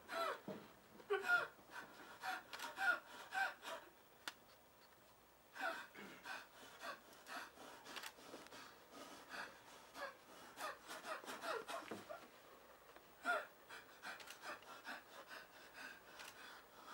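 A person's voice, faint, in short bursts of vocal sounds rather than clear words, with a pause of about two seconds near the start.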